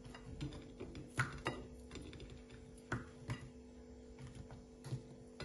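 Light, scattered taps and clicks as onion pieces are set down onto frozen okra in a glass baking dish, about five or six in all, over a faint steady hum.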